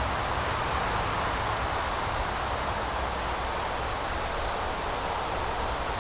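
Steady outdoor rushing noise, even and unbroken, with a low rumble underneath.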